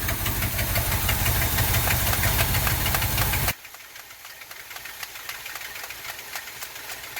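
Dodge 360 small-block V8 running rough at idle with a rapid, even pulsing, starved of fuel through a crusty Quadrajet carburetor. About three and a half seconds in, the sound drops off suddenly to a much fainter run.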